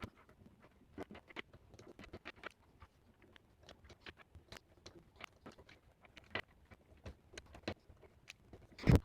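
Plastic Rubik's cube pieces clicking and tapping as they are pressed one by one into their slots while the cube is put back together; light irregular clicks, with a louder knock near the end.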